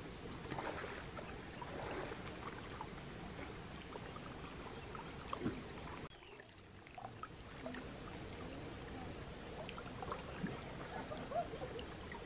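Outdoor ambience of water moving and trickling, with scattered small splashes and clicks and a few faint high chirps.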